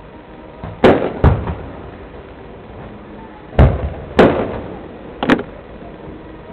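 Aerial fireworks shells bursting: five sharp bangs, the first four in two pairs under a second apart, each trailing off in an echo.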